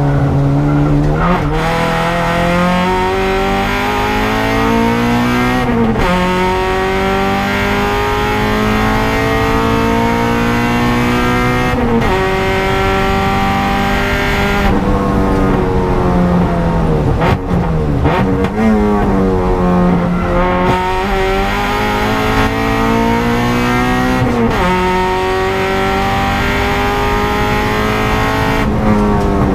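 Honda Civic EG race car's four-cylinder engine heard from inside the cabin under hard acceleration. Its note climbs through each gear and drops sharply at each shift or lift, several times over, with revs falling in steps around the middle as the car slows for a corner.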